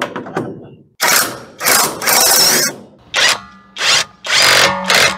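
Alloyman 20V brushless 1/2-inch cordless impact wrench hammering in bursts, driving bolts and lug nuts: one long run of over a second, then several shorter bursts.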